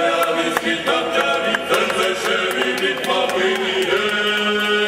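Several voices singing together in a chant-like choral sound, with a long held note near the end. Short sharp clicks recur over it.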